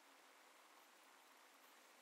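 Near silence: a faint steady hiss of room tone.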